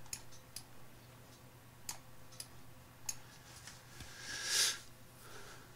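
Computer mouse clicking, a few sharp separate clicks spread out, over a low steady hum. About four and a half seconds in there is a brief soft rushing noise.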